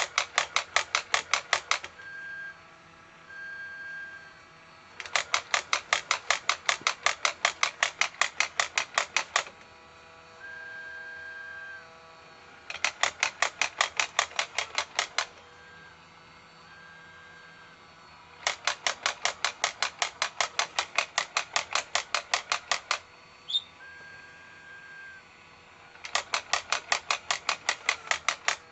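Casio AC-200 robot alarm clock going off: runs of sharp, rapid pulses, about eight a second, each lasting two to four seconds. Between the runs come short steady tones, over a faint steady hum.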